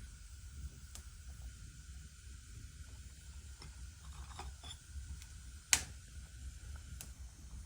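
Wood fire in a fireplace crackling with scattered small ticks and one sharp pop a little under six seconds in, over a low steady rumble.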